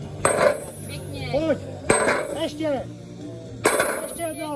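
Sledgehammer blows on a heavy steel cylinder, driving it along a steel track in a forcible-entry drill: three clanging strikes about a second and a half apart, each with a short metallic ring.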